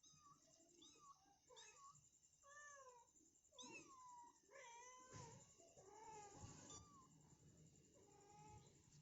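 Mother cat meowing again and again to call her kittens: about ten short calls that rise and fall in pitch, the loudest near the middle.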